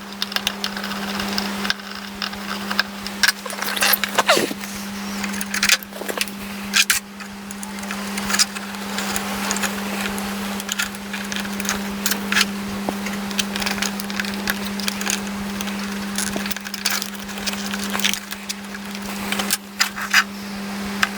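Irregular clicks and taps of small hand work on electrical wiring and terminals, over a steady low hum.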